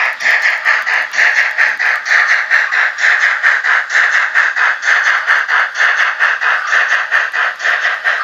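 Märklin H0 model train running past: a steady, even rattle of about four or five beats a second, as the steam locomotive and its string of goods wagons roll by.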